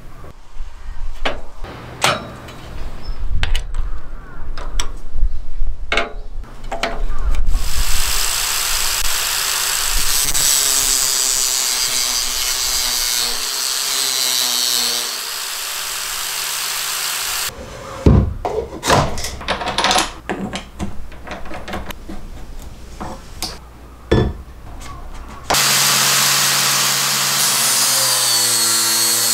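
Makita GA4033 angle grinder rigged as a disc sander, running steadily and grinding a steel strip for about ten seconds, then starting up again near the end. Before and between the runs, sharp knocks and clatter from handling the rig and workpieces.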